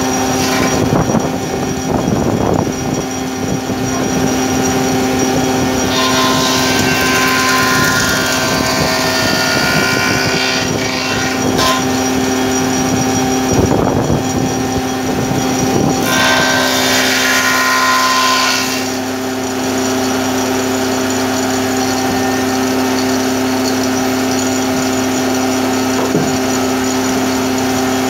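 Combination jointer-thicknesser wood planer running with a steady hum. Several times the noise grows harsher and louder as a board is fed across the spinning cutter head, then settles back to the idle hum near the end.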